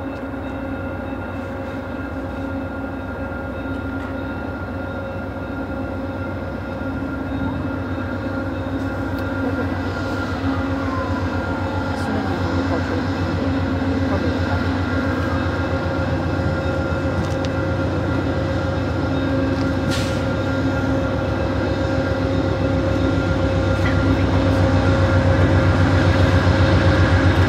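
Approaching VIA Rail passenger train, its diesel locomotive running with a steady hum and low rumble that slowly grows louder as it nears.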